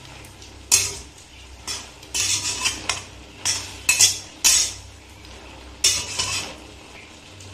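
Metal spatula scraping and stirring taro stalks in a steel kadai, in sharp irregular strokes about once a second, stopping about two-thirds of the way through.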